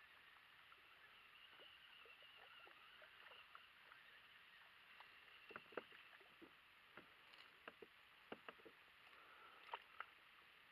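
A small hooked fish splashing and thrashing at the water surface as it is reeled in beside a kayak: faint, irregular splashes starting about five seconds in, with the sharpest near the middle and near the end.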